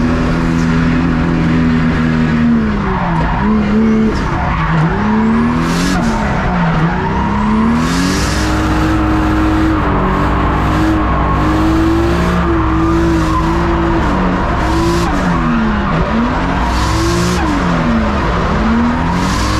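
Drift car engine heard from inside the cabin, held at high revs with the note dipping and climbing again several times as the throttle is worked through the drift. Tyres squeal and skid in bursts over it.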